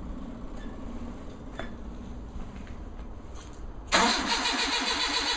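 Starter motor cranking the engine of a home-built Locost kit car that has not been started all summer. The cranking cuts in suddenly near the end after a few faint clicks and runs in a steady, even rhythm without the engine catching.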